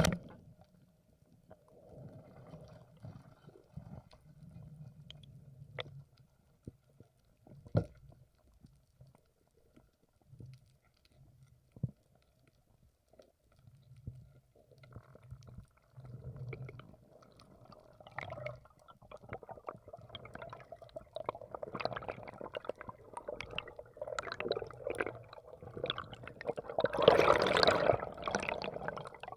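Muffled underwater sound from a camera in the water: scattered faint clicks and a low murmur, then water noise that swells and is loudest near the end.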